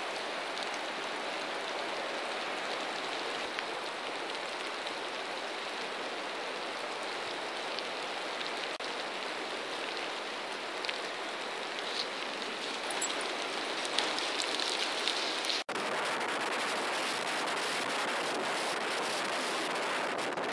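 Steady rain falling, an even hiss with a few faint ticks. About three-quarters of the way through it cuts off abruptly and gives way to a slightly louder steady rush of wind on the microphone, with surf.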